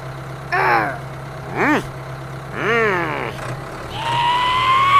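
A steady low engine hum with four short vocal cries over it, each sliding up and down in pitch. A long rising call comes near the end.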